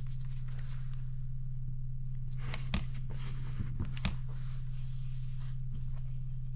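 Framer's tape being pulled off its roll in short rasps and pressed down onto a wooden board, with a few light knocks around the middle, over a steady low hum.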